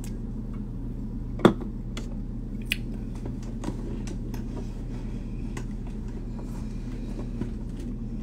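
Someone drinking from an aluminium drink can, with small mouth clicks and swallows, and a sharp knock about a second and a half in and a smaller one a second later, over a low steady hum.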